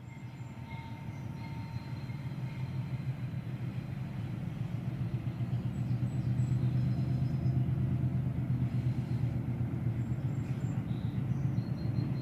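Train approaching, its low rumble growing steadily louder over the first six seconds or so and then holding.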